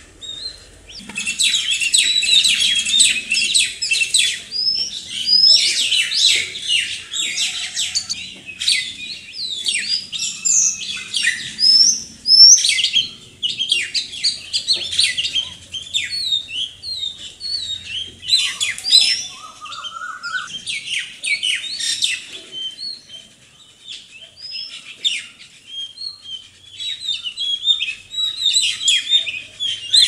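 Rose-ringed parakeets (ring-necked parrots) calling: many quick, overlapping chirps. The calls are densest in the first part, die down to a lull about three-quarters through, and pick up again near the end.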